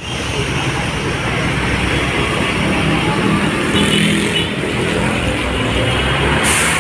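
Road traffic noise: vehicles running steadily, with a short hiss near the end.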